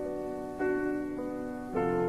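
Music: slow chords struck about once a second, each one fading before the next.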